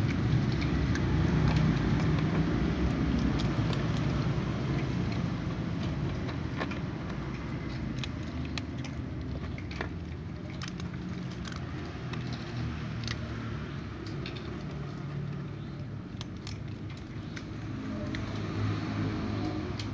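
Two cats crunching dry kibble, with scattered sharp crunches and clicks over a steady low rumble.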